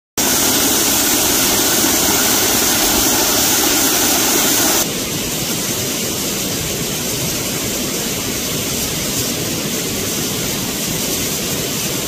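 Steady rushing of a waterfall and mountain stream, a dense hiss of falling water. About five seconds in it drops a little and loses some of its sharpest hiss.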